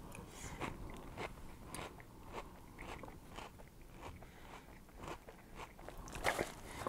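A mouthful of Lucky Charms oat cereal and marshmallows in milk being chewed, with crunches about every half second. Near the end the cardboard cereal box is picked up.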